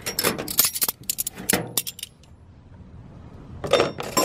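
Steel hand wrenches clinking against each other as they are handled. There is a quick run of sharp metallic clinks in the first two seconds and another cluster near the end.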